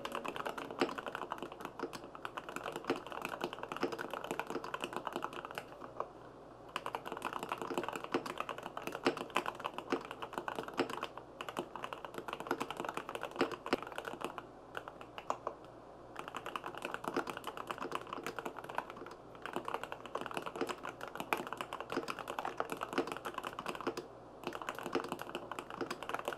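Typing on a GMK67 custom mechanical keyboard with Cherry MX Black linear switches, a PC plate, full foam and GMK Pixel keycaps: a fast, steady run of keystrokes with a few brief pauses.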